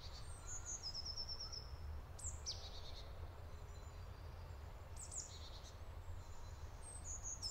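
Songbirds calling faintly: a few short, high trills and chirps at intervals of about two seconds, over a low steady rumble.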